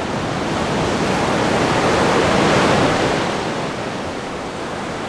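Open-ocean waves and a sailboat's foaming wake rushing and churning past the stern. The rush swells to its loudest about halfway through, then eases off.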